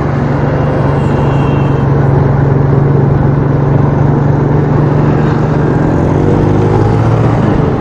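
Small motorcycle engine running at a steady cruising speed, heard from the rider's helmet with wind and road noise over it; the engine note drops a little near the end.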